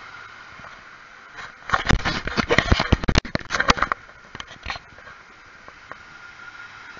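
Camera being handled and moved about: a cluster of knocks, rubbing and clatter right at the microphone from about two to four seconds in, then a few lighter taps.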